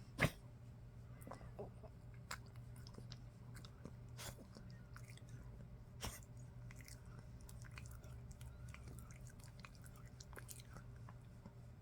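Old poodle's faint, scattered mouth sounds, small smacks and licks of its lips, in a pause between coughing fits, with one sharper sound just after the start. A low steady hum runs underneath.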